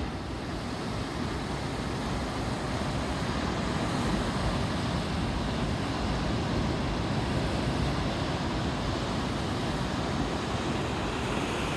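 Steady rushing noise of wind and sea surf, with a heavy low rumble of wind on the microphone.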